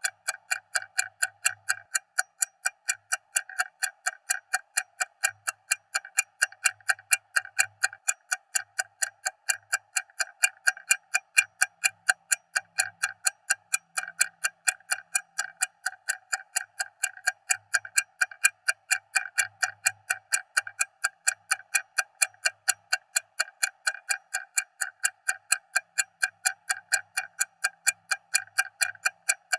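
Stopwatch ticking loudly in a fast, perfectly even rhythm of sharp clicks, several ticks a second, looped without a break.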